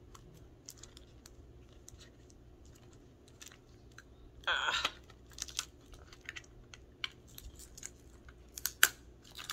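Faint, scattered clicks and taps of fingers and nails working at a small product box to get it open. There is a brief louder scrape about halfway and a sharper click near the end.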